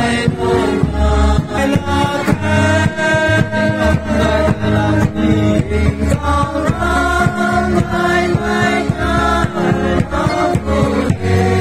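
Men and women singing a hymn together over a steady beat.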